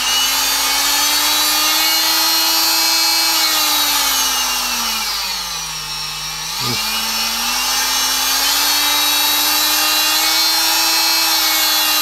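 Fein MultiMaster oscillating multi-tool running unloaded with a steady motor whine, with no cutting out now that its broken mains lead has been repaired. Its speed is turned down about four seconds in, the pitch dropping low, then brought back up about seven seconds in: the speed control working.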